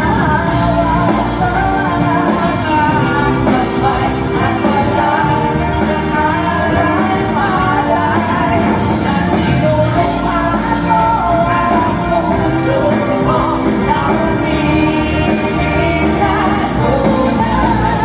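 Live pop song: a singer's voice over a full band, loud and steady throughout.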